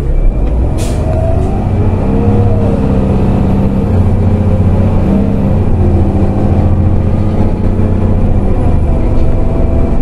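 Heuliez GX 127L city bus heard from inside: a short hiss of air as the brakes release about a second in, then the diesel engine pulling away, its revs rising as the bus gathers speed.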